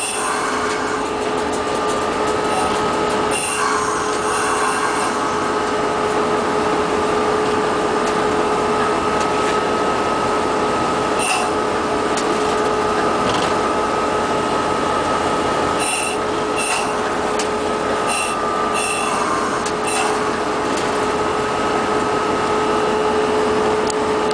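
Diesel locomotive running at rest, heard inside its cab as a steady noise with a constant two-tone hum. Brief high hisses break in several times, mostly in the second half.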